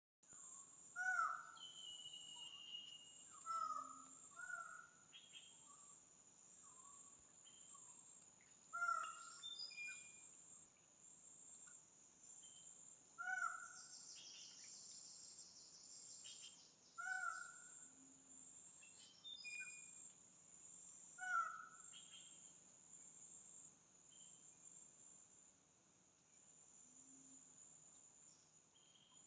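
Tropical forest sound: a steady high insect drone, with a short rising-and-falling call from an unidentified animal, likely a bird, repeating about every four seconds. Scattered other chirps and three faint low hoots are heard among them.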